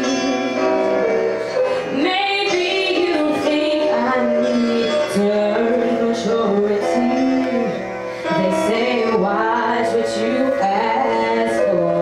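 A woman singing live into a handheld microphone, holding long notes and bending them up and down in runs, over a musical accompaniment.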